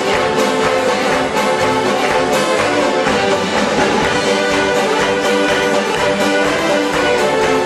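Mummers string band playing a lively tune: saxophones, banjos and accordions sounding together in full chords over a steady, regular beat.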